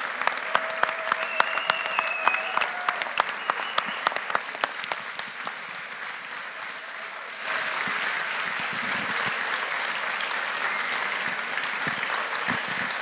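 Large audience applauding: first clapping together in a steady rhythm of about three claps a second, which thins out, then an abrupt change about halfway through to dense, steady applause.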